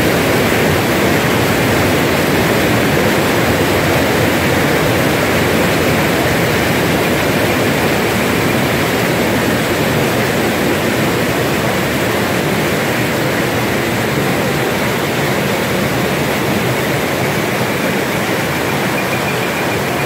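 Loud, steady rush of a torrent of water surging down an artificial rock channel in a flash flood simulation, easing a little near the end.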